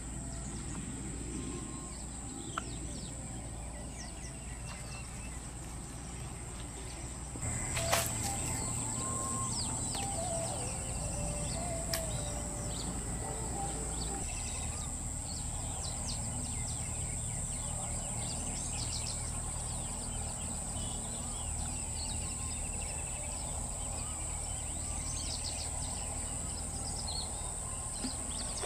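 Marsh ambience: many birds chirping and calling over a steady high-pitched drone that grows louder about seven seconds in, with a low wind rumble beneath.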